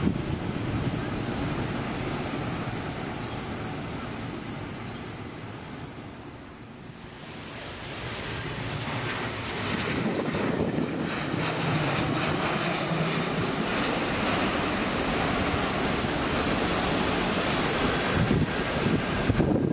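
Jet engine noise of a departing airliner fading as it climbs away, then a Caribbean Airlines Boeing 737 on final approach growing louder with a faint high engine whine as it comes in to land. Wind buffets the microphone throughout.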